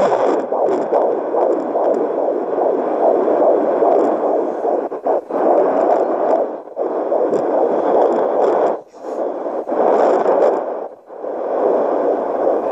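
Home fetal doppler's speaker playing an unborn baby's heartbeat, a continuous pulsing sound that cuts out briefly a few times.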